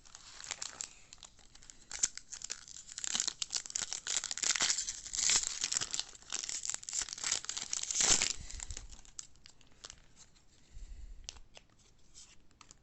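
A baseball card pack's wrapper being torn open and crinkled for about eight seconds, then fainter rustling near the end.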